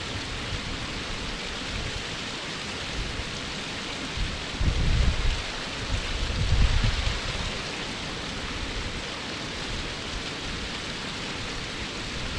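Waterfall heard from its base, a steady, full rush of falling water. Twice near the middle, low rumbling swells rise above it for a second or so.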